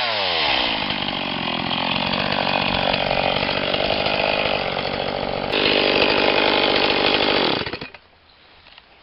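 Stihl MS 180 two-stroke chainsaw: its revs drop right at the start and it runs lower and unevenly, picks up again about five and a half seconds in, then stops abruptly near the end.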